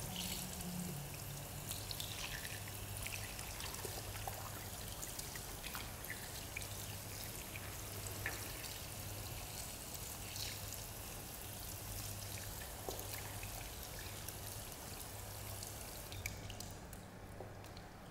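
Running water: a steady hiss with scattered small clicks, cutting off about a second before the end.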